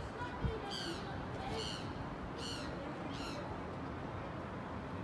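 Level crossing audible warning alarm sounding a high, falling electronic chirp about once a second, which stops about three seconds in as the pedestrian red-man light goes out.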